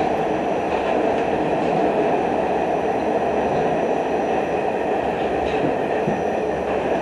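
R68 subway car running along the track, heard from inside the car: a steady rumble of wheels on rail, with a faint high steady tone above it.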